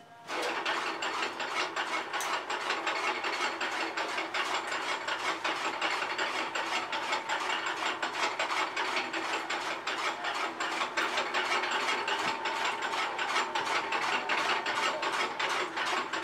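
Electric-motor-driven chaff cutter (fodder and straw cutting machine) running: a steady, rapid clicking rattle of its gears and flywheel blades that sets in suddenly just after the start.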